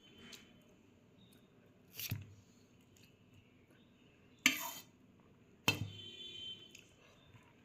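Dishes and cutlery clinking at a meal: three sharp clinks, the last two louder, the final one ringing on briefly.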